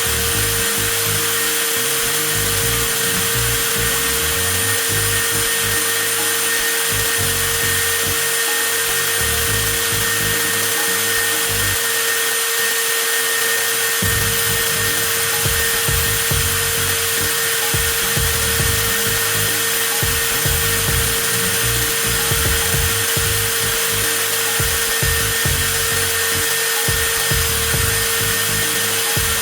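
TOTAL 20V cordless angle grinder running continuously at a constant speed with a steady high whine, left on to run down its 4 Ah battery.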